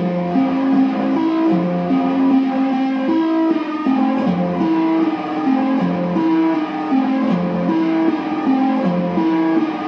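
Amplified kalimba (thumb piano) played through effects pedals and a guitar amplifier: a repeating plucked melody of ringing, sustained notes.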